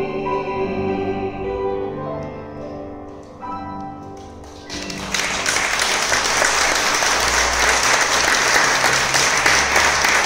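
The bolero's last accompanied notes ring out and fade, with a final chord about three and a half seconds in. Then audience applause starts about five seconds in and goes on, louder than the music before it.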